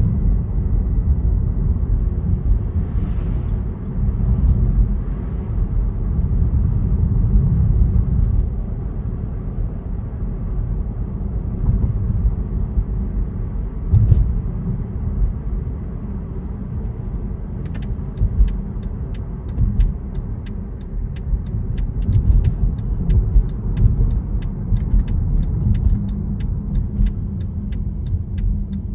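A car's low, steady road and engine rumble, heard through a dashcam. From about eighteen seconds in, an even, rapid ticking of roughly two to three clicks a second joins it, typical of a turn-signal indicator.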